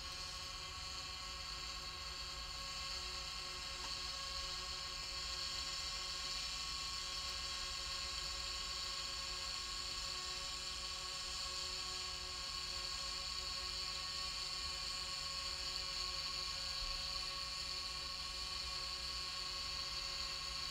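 A steady whirring hum with a few constant high tones and no change in pitch or level.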